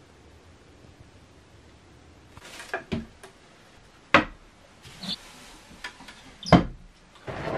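Faint steady background at first. Then, from about two and a half seconds in, a handful of sharp wooden knocks and clatters as vegetables are rummaged out of a wooden cupboard, the two loudest about halfway through and near the end.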